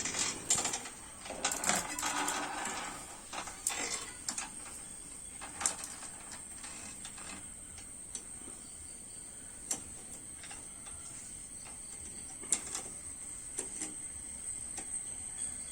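Metal bicycle chain being handled and fitted onto the cycle's sprockets: links clinking and rattling, busiest in the first few seconds, then occasional single clicks.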